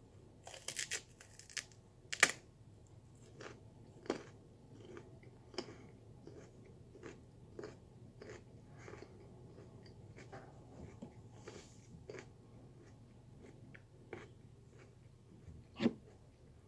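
Raw sweet potato being crunched and chewed close to the microphone: a loud crunch about two seconds in, then a steady run of short crisp chewing crunches about twice a second. A louder thump comes near the end.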